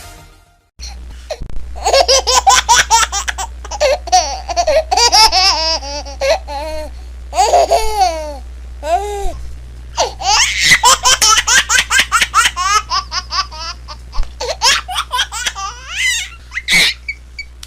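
A baby laughing in repeated bouts of quick, breathy giggles and high squealing laughs, starting after a brief gap about a second in.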